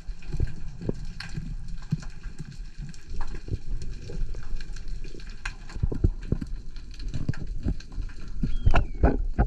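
Underwater sound picked up by a diver's camera: irregular muffled thuds and sharp clicks with water movement, louder toward the end, and a short falling squeak near the end.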